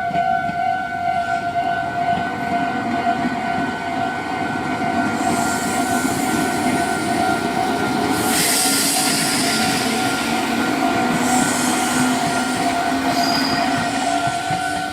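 Level-crossing warning bell ringing steadily on two tones while a Meitetsu train passes over the crossing. The train's rumble and hiss of wheels on rail build from about five seconds in and are loudest around the middle, with a pitched whine rising slowly near the end.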